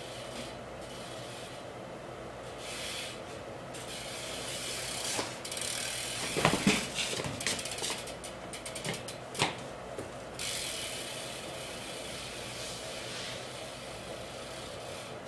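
A 2011 Verde Radia BMX bike ridden through tricks: a few knocks from the tyres and frame between about five and ten seconds in, the loudest a sharp hit near the end of that stretch, with a quick run of freewheel clicking in between. A steady hiss lies underneath throughout.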